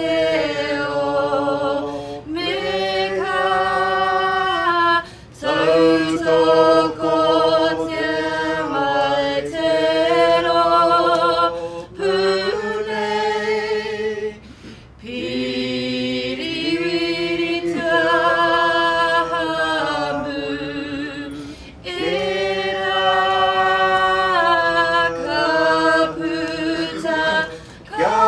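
A small group of women's and men's voices singing a Māori waiata unaccompanied, in long held phrases with brief pauses between them.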